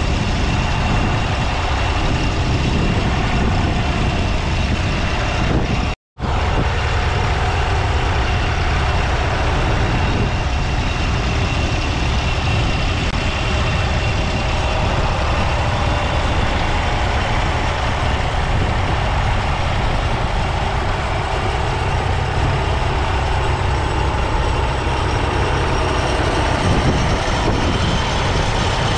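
A 1962 Massey Ferguson 35's 2.5-litre three-cylinder diesel engine running steadily as the tractor pulls a three-furrow plough through the soil. The sound cuts out completely for a split second about six seconds in.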